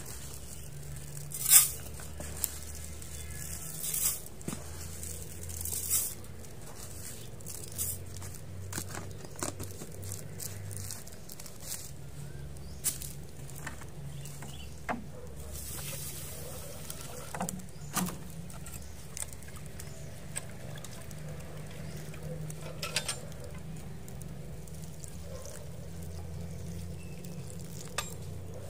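Dry rice grains scooped from a plastic jar and poured into a metal mess tin, with a few short pouring rushes in the first seconds and scattered clicks and knocks of containers being handled.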